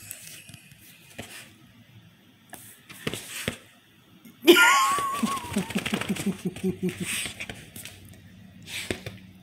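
A woman laughing about halfway through: a high wavering note, then a quick run of short breathy pulses that fades away.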